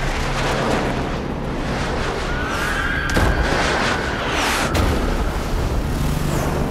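Film sound mix of a city under destruction: dense rumbling explosions and booms over music, with a sharp crack about three seconds in and short rising whistling tones.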